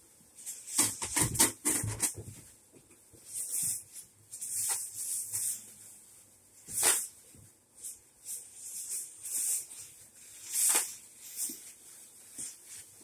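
Clear plastic bag crinkling and rustling in bursts as it is gathered and pulled off a doll. The bursts are loudest and most frequent a second or two in.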